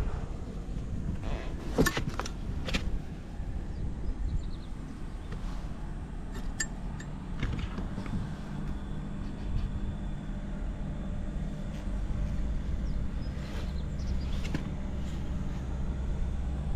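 Buell XB12SS Lightning's air-cooled V-twin idling steadily, with a few sharp clicks about two seconds in. The engine runs without abnormal noise, as the seller describes it.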